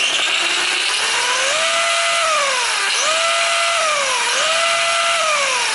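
Surpass Hobby 5900Kv brushless motor in an HBX 901A buggy, on the stock ESC, spinning the wheels off the ground: a high motor whine over drivetrain gear noise. The pitch climbs, holds and drops three times as the throttle is pulled and eased, and winds down near the end.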